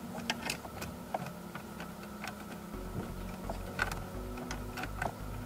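Scattered small clicks and ticks as a hand screwdriver backs out a Torx T20 screw holding the instrument cluster.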